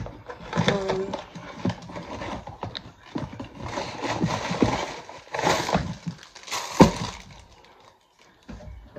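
Crinkling and rustling of a waffle box and its clear plastic inner bag being opened and handled, with scattered knocks; the loudest is a sharp knock about seven seconds in.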